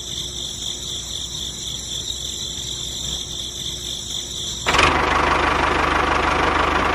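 Small electric motor of a homemade model tractor running with a steady high whine. About five seconds in, the sound jumps to a louder, rougher engine-like running with a fast low pulse.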